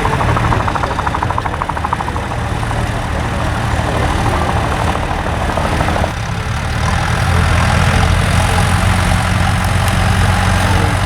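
Tractor engine running steadily, with a fast rhythmic clatter over it in the first few seconds. About six seconds in the sound shifts to a deeper, stronger drone.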